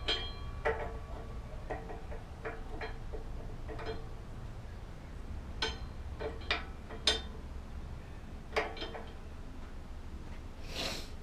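Scattered light metallic clicks and clinks, a few ringing briefly, as brake pads and caliper parts of a motorcycle disc brake are handled and fitted, with a short scraping rub near the end.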